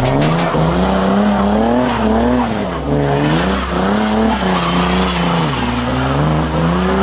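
Car engine revving hard, its pitch rising and falling again and again as the throttle is worked, over tyre noise.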